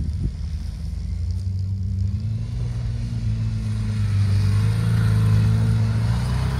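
Sport quad (ATV) engine revving hard as the quad spins its rear wheels through snow doing donuts. The engine note climbs about two seconds in and is loudest around five seconds in.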